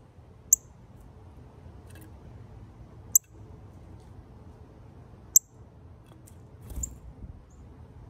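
Northern cardinal giving three sharp, high chip calls a couple of seconds apart, then a short flutter of wings near the end as it takes off from the feeder.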